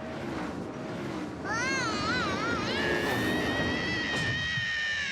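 Cartoon sound effects: a noisy rumble, then a warbling whistle-like tone wobbling up and down several times. It settles into one long, high held tone that sinks a little before cutting off near the end.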